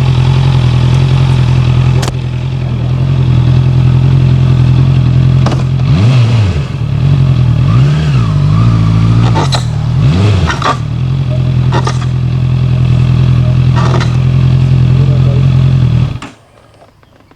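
Honda CB650F inline-four engine running under way, its pitch dipping and rising several times midway as the throttle is eased off and opened again. Sharp clacks break through every few seconds: the clattering of something striking as the bike moves, the rider suspects something caught in between. The engine sound stops abruptly near the end.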